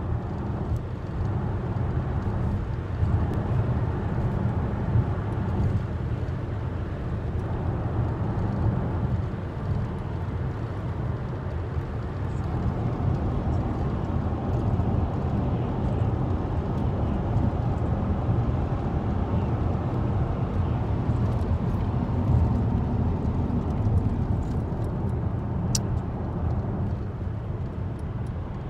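Steady, low road noise inside the cabin of a car driving at speed: tyre and engine rumble with no change for the whole stretch.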